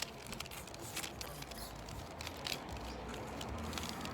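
Rubik's cube being scrambled by hand: irregular light clicks of its plastic layers being turned.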